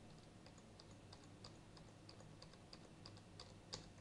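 Faint computer keyboard typing: one key pressed over and over, about three keystrokes a second, over a steady low hum.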